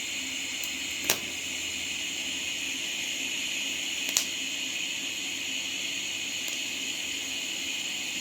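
Steady hiss of argon shielding gas flowing from a TIG welding torch, with a faint low hum from the welder. Two short sharp clicks about one and four seconds in.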